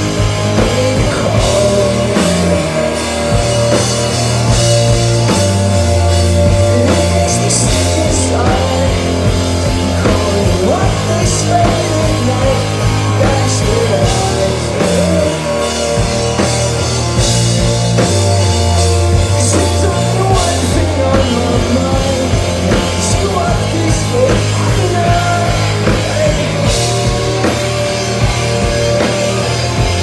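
Rock band playing live through a club PA, heard from within the crowd: distorted electric guitars over a drum kit with crashing cymbals and heavy low bass notes.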